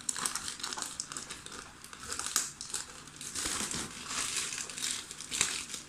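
Plastic courier pouch crinkling and rustling in irregular bursts as it is cut with scissors and pulled open by hand.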